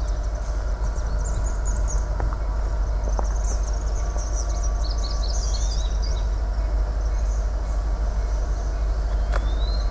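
EMD SD90/43MAC diesel locomotives approaching with a steady low engine rumble. Faint high chirping runs over it, strongest in the middle.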